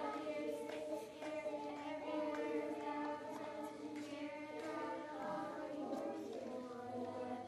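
Children's voices singing a song together, with held notes.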